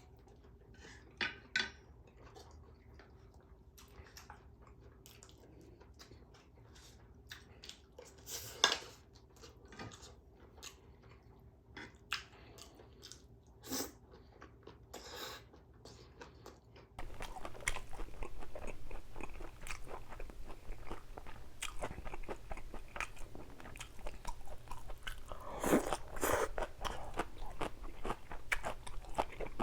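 A person chewing food close to the microphone. Sparse mouth clicks for the first half, then steady crunchy chewing from about halfway in.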